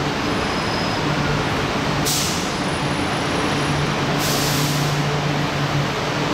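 Taipei Metro Wenhu Line train at the platform: steady running noise with a low hum and two short, sharp hisses of air, about two seconds in and again about four seconds in.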